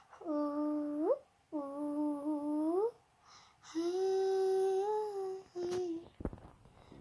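A child's voice humming a slow tune in four long held notes, two of which slide upward at the end. A couple of soft knocks come near the end.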